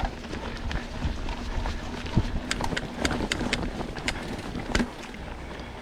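Mountain bike rolling over a dirt trail: wind buffeting the microphone, with the tyres and frame giving off scattered sharp clicks and rattles.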